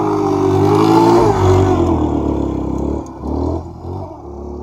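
Honda XR125L's 125 cc single-cylinder four-stroke engine revving up and down as the motorcycle is ridden close past and then away, its sound dropping and fading after about three seconds.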